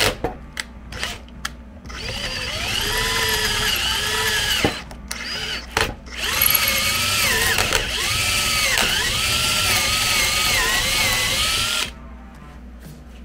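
Handheld power drill with a twist bit boring out the wooden handle end in the middle of a steel barrel wedge in an axe eye. The motor whine dips in pitch each time the bit bites into the wood. It runs in short bursts at first, pauses briefly, then runs steadily and stops shortly before the end.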